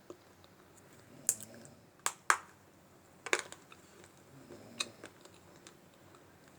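Dry Multani mitti (fuller's earth clay) being bitten and chewed: about five sharp, separate crunches with fainter ticks between them.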